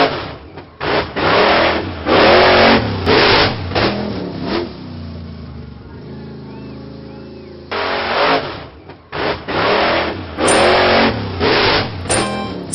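Cartoon monster truck engine sound effect: a steady idling rumble broken by a series of loud revs, with a lull in the middle. Near the end, several short bright chimes ring out as gold coins are picked up.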